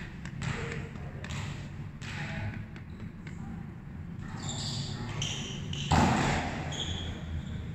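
Volleyball being struck and bouncing on a hard court floor in a large echoing hall, with a loud smack about six seconds in as a player hits the ball at the net.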